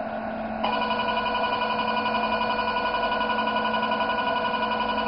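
Velure S5 532 nm diode laser's emission beep: a steady electronic tone that starts about half a second in and sounds while the Mixto VX scanner fires pulses. A steady low hum runs underneath.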